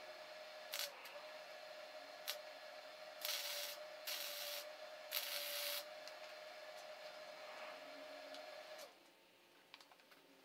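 Wire-feed welder laying tack welds on steel brackets: a brief crackle about a second in, then three half-second bursts of arc crackle between about three and six seconds. A steady hum under it cuts off near the end.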